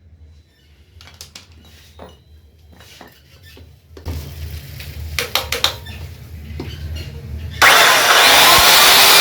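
Handling clicks and knocks, then about two-thirds of the way in an electric 14-inch cut-off machine is switched on and its motor runs loud and steady.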